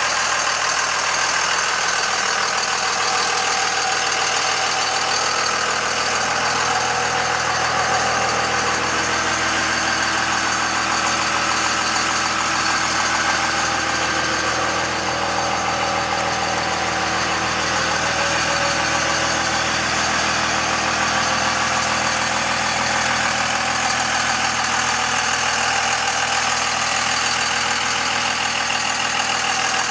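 The Cummins 5.9-litre inline-six turbo-diesel of a 1999 Dodge Ram 3500 idling steadily.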